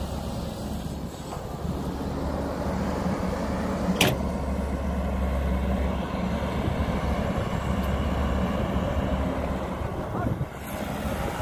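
Caterpillar 312B excavator's diesel engine running steadily under load as the machine swings and digs, with one sharp clank about four seconds in.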